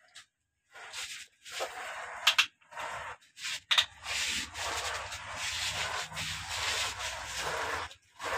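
Plastic toy excavator scraping and dragging through damp loose soil: gritty scraping in irregular bursts, with a couple of sharp clicks of the plastic arm and bucket. A low steady hum joins under the scraping about halfway through.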